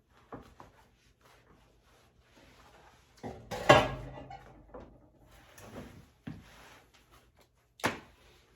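Indoor handling clatter: a run of small knocks and clunks, with a loud clunk about four seconds in and another sharp one near the end.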